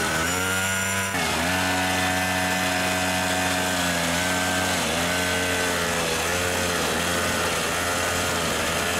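Small engine of a mini pocket bike running as it tows a loaded trailer, its pitch dipping and recovering several times, most deeply about a second in.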